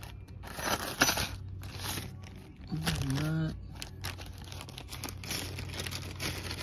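Plastic zip-top parts bags crinkling and rustling as they are handled, with a sharp click about a second in.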